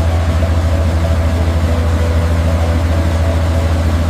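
Heavy diesel engine running steadily at idle with a deep, fast, even throb, the sound effect for an asphalt paver.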